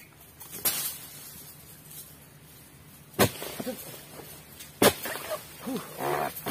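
Two sharp knocks about a second and a half apart, then several short calls of an animal, each rising and falling in pitch, near the end.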